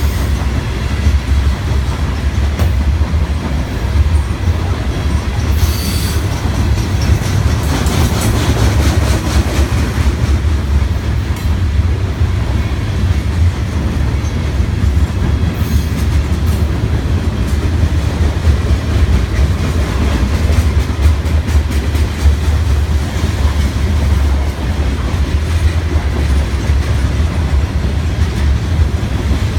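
Freight train of covered hopper cars rolling past close by: a steady, heavy rumble with the wheels clacking, and a brief high squeal about six seconds in.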